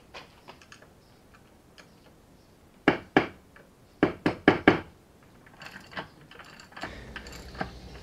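Sharp metal hammer taps on a drift, two and then a quick run of four, bending the lock tab washer up against the camshaft sprocket bolt. Faint tool clicks and rattles come before and after.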